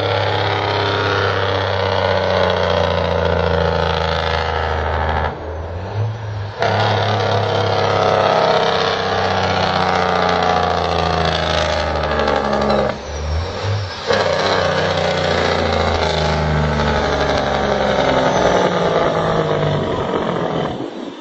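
A vehicle engine running hard at steady high revs under heavy rushing wind and road noise, as at speed. It eases off briefly twice, about five seconds in and again about thirteen seconds in, then pulls again.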